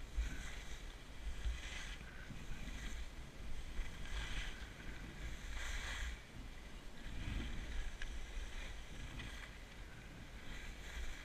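Skis scraping and hissing over groomed snow through a series of turns, a swish about every second and a half, over a steady low rumble of wind on the microphone.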